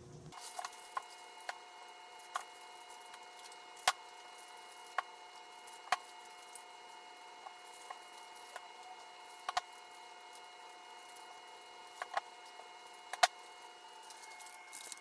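Scattered light clicks and taps, about a dozen at irregular intervals, from hands and utensils working food in a loaf pan during assembly, over a faint steady hum.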